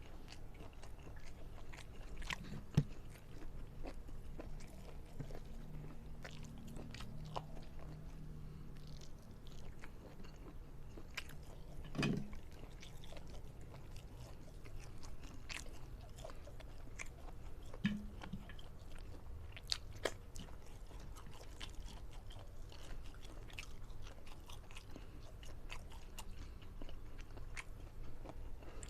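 Close-miked eating: a person chewing and biting food, with scattered small crunches and wet mouth clicks, a few sharper ones standing out.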